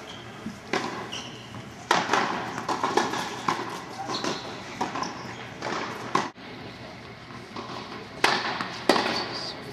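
Tennis balls being struck by rackets and bouncing on an indoor hard court: a string of sharp hits spread through, the loudest about two seconds in and two near the end, with voices murmuring in the background.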